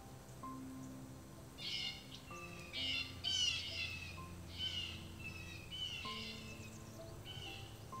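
Small songbirds calling, a run of short downward-sweeping chirps starting about two seconds in and repeating every half second or so, over soft background piano music.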